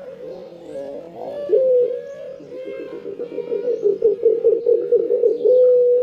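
A ringneck dove (burung puter) cooing. It gives a run of quick, wavering notes that grow louder toward the end, then goes into one long steady coo near the end.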